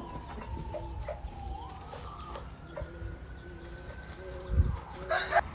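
Chickens calling softly, with short low clucks over a long thin drawn-out call in the background. A louder call, a young rooster starting to crow, breaks in near the end.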